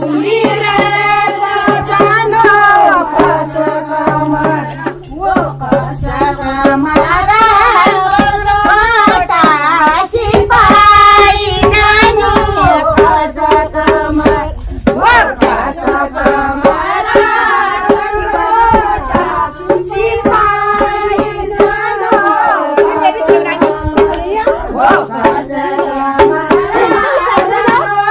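Kumaoni Holi folk song: voices singing to a hand drum, with hand clapping and a steady beat of percussion strokes.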